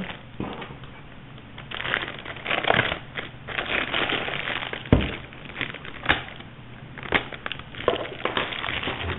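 Packaging being handled and unpacked: rustling and crinkling, broken by several sharp knocks, the loudest about five seconds in.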